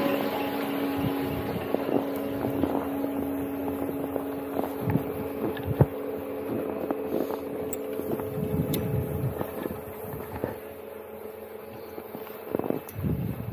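Button-lift drive machinery humming steadily, fading as the rider is towed away uphill, under the scrape and hiss of a snowboard sliding over groomed snow, with irregular clicks and wind on the microphone.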